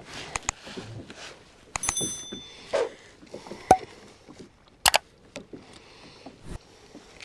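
Fishing tackle being handled on a kayak: scattered clicks and knocks, with a short metallic ring about two seconds in and two sharp clicks a little later.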